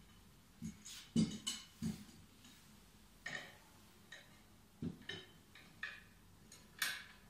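Irregular metal clicks and knocks from a hand-push vegetable seeder's steel handle and bracket being adjusted by hand, about nine over several seconds, the sharpest about a second in and near the end.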